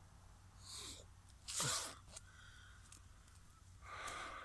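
Clothing rustling and swishing as a jacket is pulled off and a sleeve pushed up, in a few short bursts, the loudest about one and a half seconds in.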